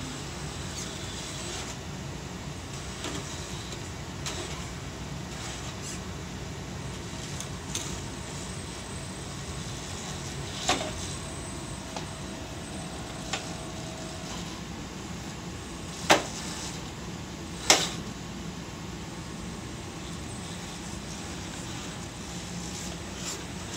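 Traxxas TRX-4 RC crawler on a 3S battery, its electric motor and gears whirring as it climbs over rocks, with sharp knocks of the truck against the rock, the loudest about 11, 16 and 18 seconds in.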